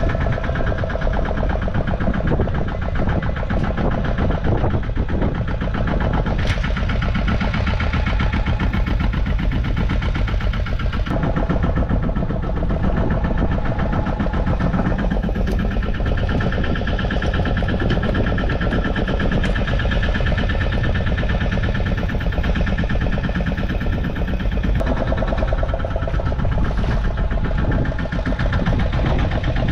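A fishing boat's engine running steadily at idle with a rapid, even beat.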